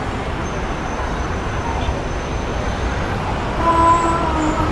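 City street traffic: a steady rumble of passing engines and tyres. Near the end, a vehicle horn sounds once for about a second.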